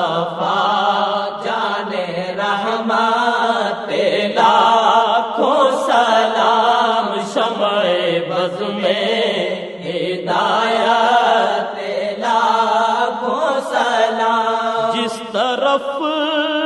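Urdu naat sung without instruments: a man's voice drawing out a long, wavering melodic line over steady lower voices.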